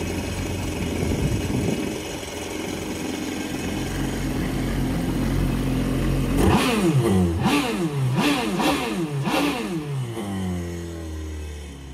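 2019 Kawasaki STX-15F's four-cylinder four-stroke engine running out of the water, cooled by a garden hose. It idles steadily, is revved up and down about four times from about six seconds in, then settles back to idle.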